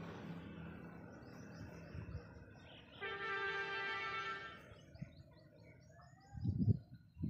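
A horn sounds one steady, flat note for about a second and a half, with small birds chirping. A low thump near the end is the loudest sound.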